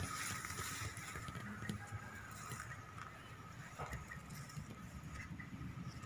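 Outdoor rural ambience: a low steady rumble on the microphone, with a faint steady high tone and a few short, faint bird chirps in the second half.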